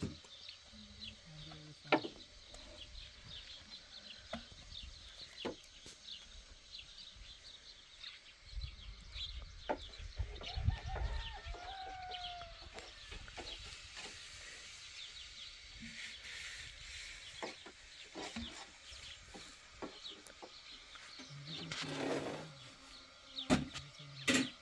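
Chickens clucking, with scattered sharp knocks and light clicks and a low rumble around the middle.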